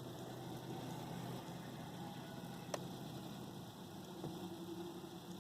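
Faint steady background hum and hiss, with a single small click about two and a half seconds in.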